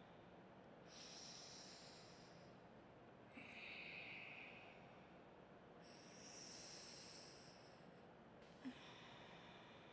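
Faint, slow breathing through the nose, one nostril held closed, in alternate-nostril breathing (Anulom Vilom pranayama): four long breaths of about two seconds each, with a small click near the end.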